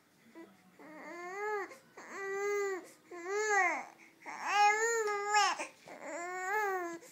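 Baby fussing with a string of about five short whiny cries, each rising and falling in pitch. The loudest and longest comes around the middle.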